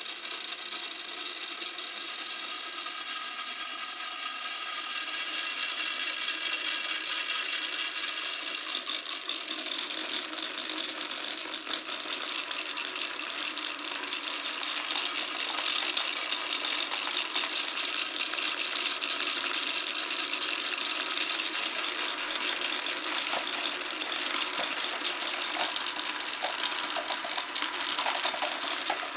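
Marbles rolling and clattering along wooden marble-run track, a dense continuous rattle of small clicks that grows louder and busier about nine seconds in.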